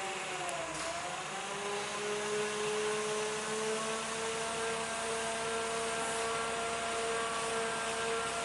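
Electric power tool motor running free with a steady whine. Its pitch dips and climbs during the first two seconds, then holds level.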